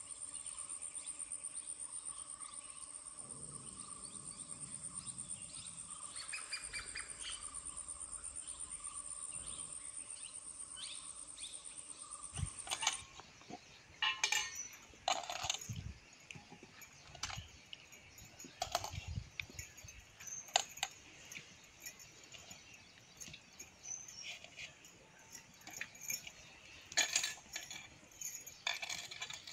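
A steady, high, pulsing insect trill runs until about halfway and then cuts off. After it come scattered clinks and knocks: potatoes being handled and washed in steel bowls of water.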